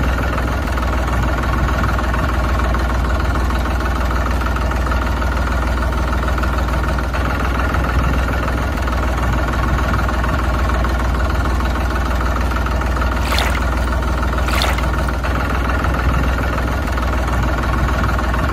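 Tractor engine idling steadily, a sound effect laid over the footage that runs on unchanged through a scene change. Two short sharp sounds come about 13 and 14.5 seconds in.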